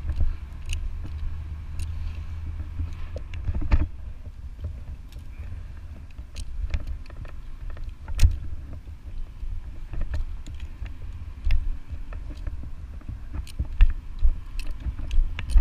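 Tree climber's gear being handled aloft: irregular sharp clicks and knocks of carabiners, rope and boots against the trunk, over a low steady rumble.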